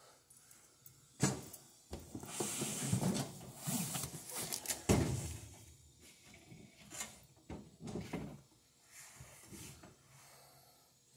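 Knocking, clattering and scraping of parts being handled during a washing-machine suspension repair: a sharp knock about a second in, then a few seconds of rattling and scraping with a heavy knock near the middle, and a few lighter knocks after.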